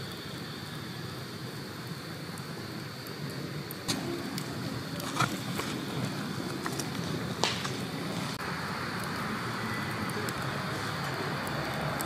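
Wood fire burning in a fire stand: a steady low rush of flames with a few sharp pops from the burning wood, around four, five and seven seconds in. A brighter hiss joins the rush about eight seconds in.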